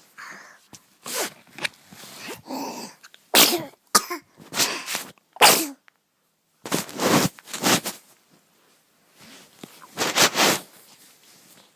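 An eight-month-old baby sneezing over and over: a run of short, sharp sneezes with brief pauses between them.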